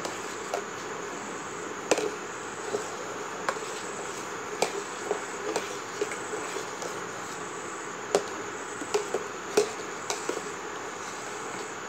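Metal spoon stirring milk and rice in a steel pot, knocking and scraping against the pot's sides in irregular sharp clicks over a steady hiss.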